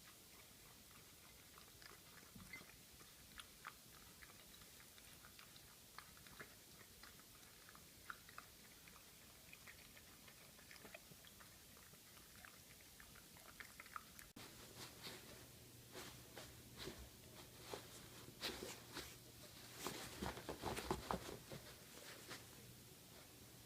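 A Shetland Sheepdog puppy chewing: faint, scattered clicks and crunches that become denser and louder from about halfway through. A low steady hum comes in at that point.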